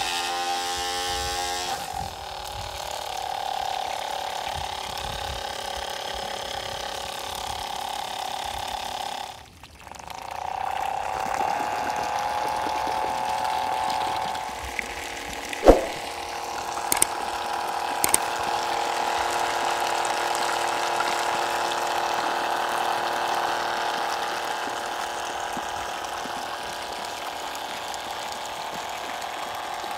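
Small high-rpm DC motor inside a toy engine model, whining steadily as it spins a mini impeller water pump. After a short break about nine seconds in, the whine comes back rising in pitch as the motor spins up. A single sharp knock comes about halfway through.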